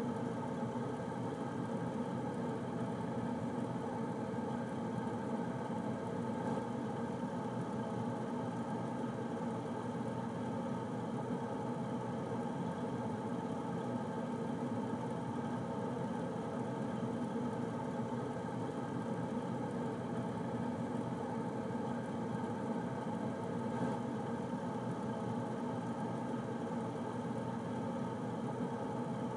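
Air conditioner running steadily: an even hum and whir of fan and motor, with no change throughout.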